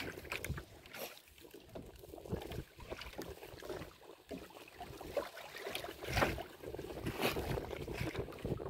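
Fishing net being hauled by hand into a small wooden outrigger boat on choppy water: irregular rustling and knocking of the wet net and its floats against the hull, with two louder knocks about six and seven seconds in.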